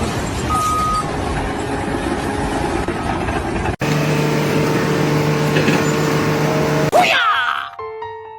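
Vehicle engine noise, then a sudden cut to a steadier, lower engine drone. About seven seconds in comes a swoosh and a few clean musical notes.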